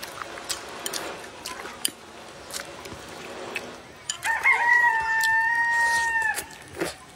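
A rooster crowing once, about four seconds in: a short wavering rise, then a long held note for about two seconds that cuts off sharply. Light clicks of chopsticks against a bowl come before it.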